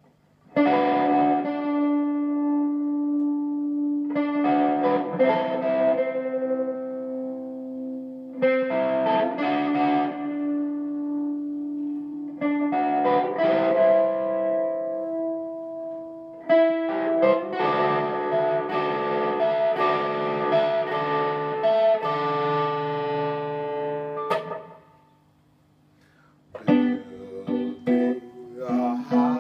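Electric guitar played through an amplifier with effects: slow chords left to ring for about four seconds each, then a longer, busier passage. It stops for about two seconds near the end and starts again with quicker picked notes.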